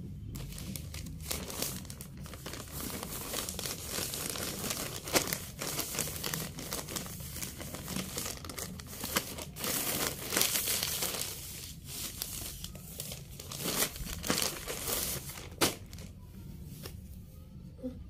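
Plastic Shein mailer bags crinkling and rustling as clothes are pulled out and handled, with a few sharp crackles, quieter toward the end.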